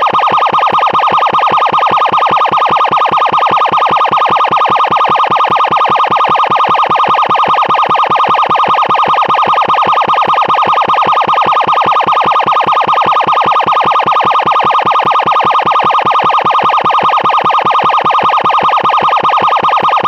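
Loud emergency siren sounding continuously at one steady high pitch, with a rapid, even pulsing and no rise or fall.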